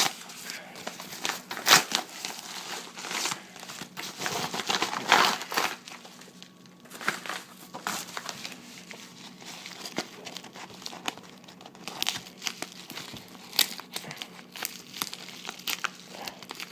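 Packaging crinkling and being pulled at by hand in irregular bursts, with some tearing, as hard-to-open card packaging is worked at without scissors.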